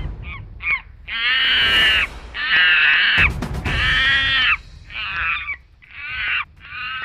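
Monkey calling: a run of shrill, pitched cries, a few short ones followed by longer ones of about a second each, coming one after another.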